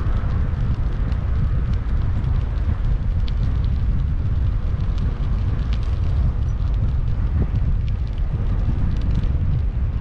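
Wind buffeting the microphone of a camera riding on a moving bicycle, a steady low rumble, with faint scattered ticks and rattles from the bike rolling over the pavement.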